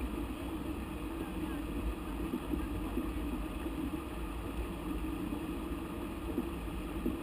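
Steady rushing of a mountain river flowing over stones, an even noise with a low rumble.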